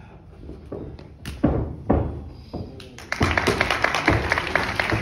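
Two heavy thuds on the wrestling ring about a second and a half in, then from about three seconds in the crowd claps quickly and steadily.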